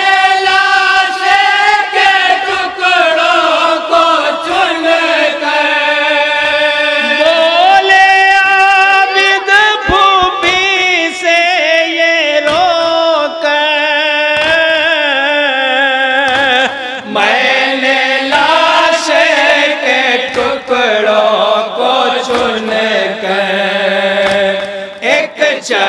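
A group of men chanting a noha, the Urdu mourning lament, in unison through a PA system, in long drawn-out sung lines that slide up and down in pitch. Sharp slaps come at irregular intervals through the second half: the mourners' chest-beating (matam).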